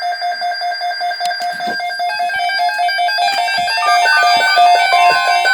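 Electronic alert tune: a rapidly repeated high note that fills out into a layered, looping melody from about two seconds in.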